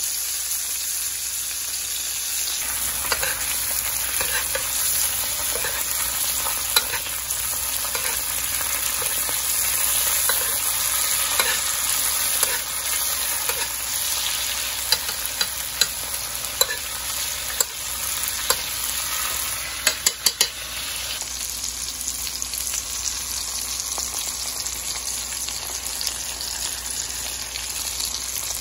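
Steady sizzle of a T-bone steak frying in foaming butter with garlic cloves in a skillet. A utensil moves through the pan, basting, and gives scattered clicks and taps against the pan, with a quick cluster of taps about two-thirds of the way through.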